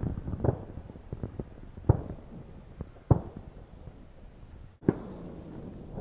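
Distant shotgun fire from duck hunters across the lake: about nine scattered reports in quick, irregular succession, each with a short echo, over light wind on the microphone.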